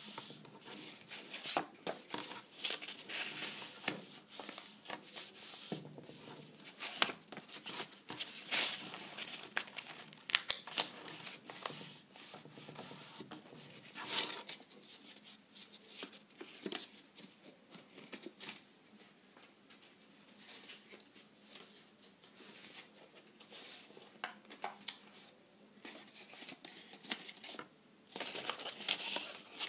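Stiff cardboard paper being folded into accordion pleats by hand: irregular rustling and crinkling, with short sharp scrapes as fingers press the creases flat against the tabletop. The handling is busier in the first half and again near the end, quieter in between.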